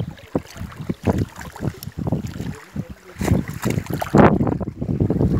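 Wind buffeting the phone's microphone in irregular gusts, with a stronger gust about four seconds in.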